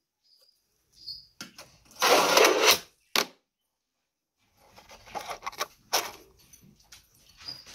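Fingerboard on a miniature ramp: the small board's wheels and deck clicking and clattering on the ramp and desk, with a louder scraping rush about two seconds in and a dense run of light clicks and rattles in the last few seconds.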